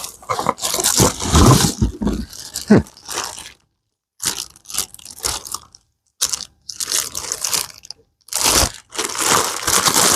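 Cardboard and plastic packaging crinkling, crunching and tearing in irregular bursts as a pressure washer is unpacked from its box, with a few short silent gaps.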